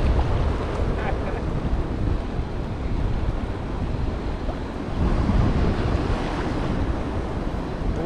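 Wind buffeting the microphone with a steady rumble, over the wash of choppy sea water.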